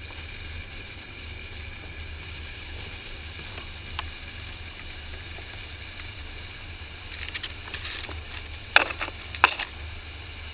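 A steady low hum and faint high whine of background noise. About seven seconds in comes a short spell of scratchy rustling, then two sharp clicks less than a second apart.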